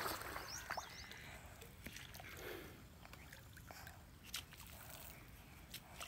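Faint outdoor ambience with a few short high chirps about half a second in and scattered light clicks.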